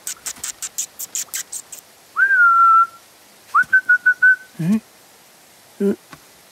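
A man whistling twice: a clear whistle that rises and then holds for about a second, then a shorter whistle that wavers in quick pulses, followed by two short grunts of his voice. Before the whistling comes about two seconds of quick, light pattering taps of a small animal scurrying.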